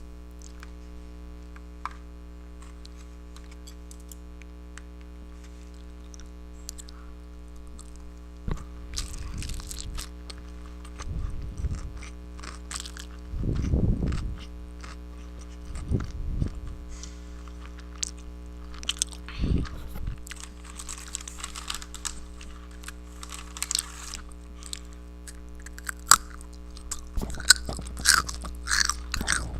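Close-miked eating: chewing and biting, with sharp crunches coming more often near the end, over a steady low hum. The first several seconds hold only the hum.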